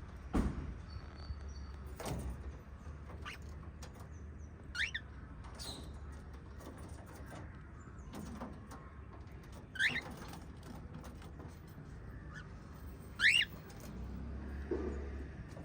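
Small pet parrots giving a few short, sharp rising chirps, spaced several seconds apart, the loudest near the end. Two knocks sound in the first couple of seconds.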